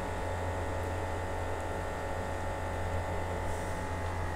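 A steady low hum with a faint hiss over it, unchanging throughout, with no sizzling of frying.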